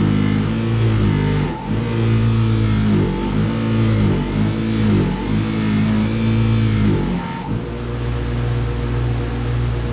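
Bench buffer's motor running with a steady hum while a resin pen blank on a mandrel is pressed against the cloth buffing wheel with polish. The hum wavers and dips each time the pen bears on the wheel, then settles to an even run near the end as the pen is lifted off.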